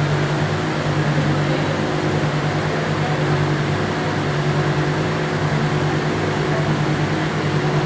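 Steady drone of boiler-room machinery: a low hum with a slight throb under a broad rushing noise, like fans and pumps running.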